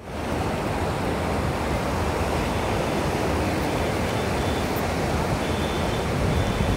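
Shallow river water rushing steadily over a flat rock bed, an even, unbroken rush.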